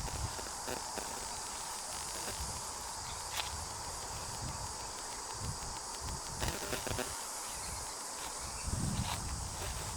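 Steady high insect chirring, with a few faint footsteps now and then.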